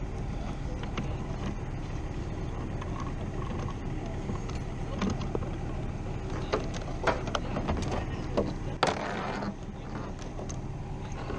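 Clicks and knocks of a trolling motor and gear being handled on a small boat, with a short scraping rustle about nine seconds in. A steady low vehicle hum runs underneath.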